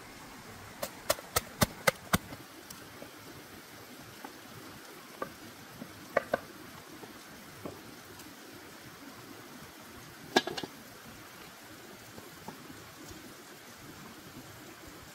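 Sharp knocks and clicks of cooking work: five quick ones in a row near the start, a few scattered ones later, and a loud clatter about ten seconds in, over a steady background hiss of a shallow stream.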